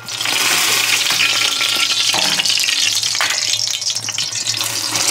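A large beef top round roast searing in hot lard in a pot over charcoal: a steady, loud frying sizzle that starts suddenly as the meat goes in. This is the browning stage of a reverse sear.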